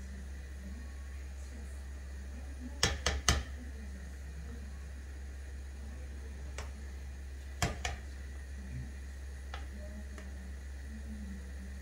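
A cooking spoon knocking against a coated pot while thick pumpkin soup is stirred: a quick run of three knocks about three seconds in, then single knocks a few seconds apart, over a steady low hum.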